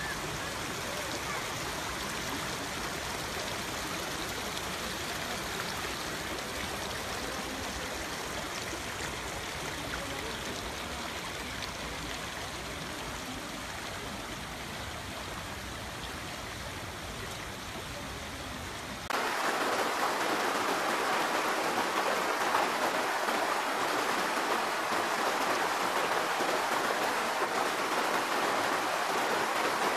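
Running water of a river or stream rushing steadily. About two-thirds of the way in, it cuts suddenly to a louder, brighter rush of water from another spot.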